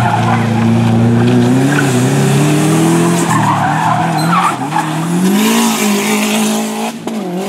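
Subaru Impreza WRX STI's turbocharged boxer (flat-four) engine revving hard under load, its pitch rising and falling as the driver works the throttle through the hairpin, with the tyres squealing as the car slides in the middle of the run.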